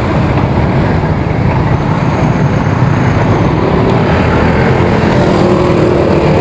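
Steady wind rush on the camera microphone of a moving bicycle, mixed with the noise of city traffic, cars and motorcycles.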